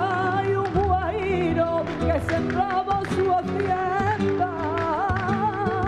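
Flamenco music: a singer's wavering, heavily ornamented voice over the accompaniment, with sharp percussive taps throughout.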